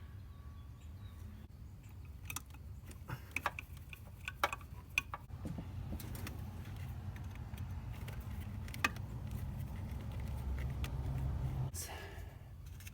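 Scattered clicks and light taps of hard plastic and small metal parts being handled, from a distributor cap and spark plug wires during a tune-up, over a low steady rumble. The clicks cluster in the first half and one sharper click comes near the end.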